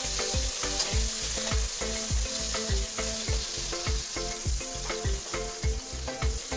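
Masala-stuffed okra shallow-frying in a little hot oil in a kadai, sizzling steadily while a slotted steel spoon stirs and turns the pods. A regular low beat with steady tones runs underneath.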